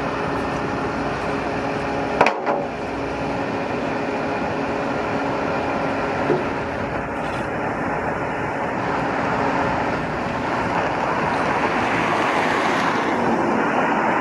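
Steady road-traffic and engine noise with a low hum, broken by a sharp metallic knock about two seconds in and a lighter one about six seconds in.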